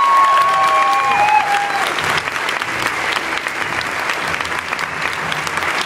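Large audience applauding, with a few high, held cheers over the clapping in the first two seconds.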